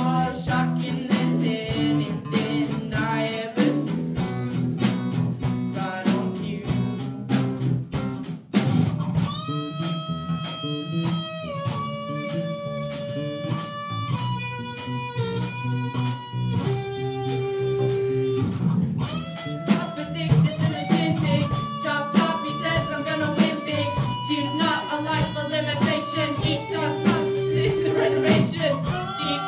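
Live band music: electric guitar and bass guitar over a steady beat, with singing. About nine seconds in the texture thins to a line of long held melody notes, and the fuller band sound returns after about ten seconds.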